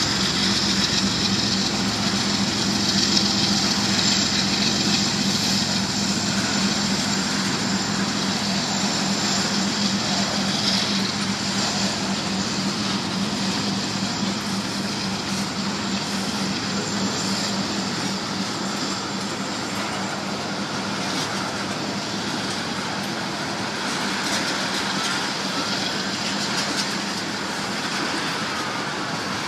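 Freight train of ethanol tank cars rolling through a junction, a steady rumble and rattle of wheels on rail over the diamond crossings. A locomotive diesel drone is mixed in at first and fades over the first half as the engines move off.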